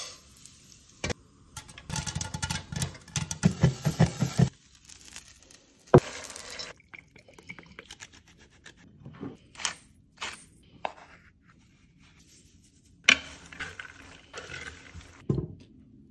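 Kitchen sounds of making popcorn: a dense run of clattering and scraping in a stainless steel pan, then short scraping strokes of a handheld cheese grater over popcorn in a wooden bowl. Near the end a metal spoon scrapes and clinks in the bowl.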